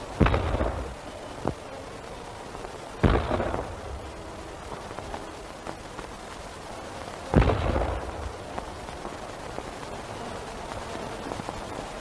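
Cannon fired three times, about three and four seconds apart, each shot a loud blast with a short rumbling tail, over the hiss of an old film soundtrack.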